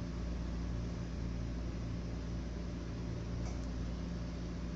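Steady low electrical hum with an even hiss over it, unchanging throughout.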